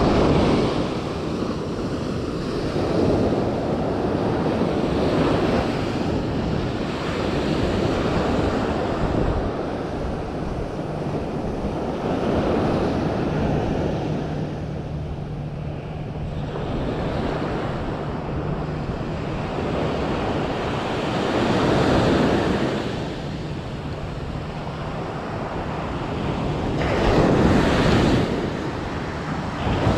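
Ocean surf breaking and washing up a sandy beach, swelling and fading every few seconds as each wave comes in.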